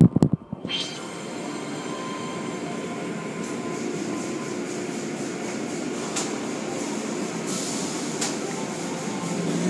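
Automatic car wash tunnel machinery, heard through the viewing-window glass. Rotating cloth brushes and water spray run with a steady mechanical rumble and hiss, with a brief loud rush of noise at the very start and a few faint slaps later on.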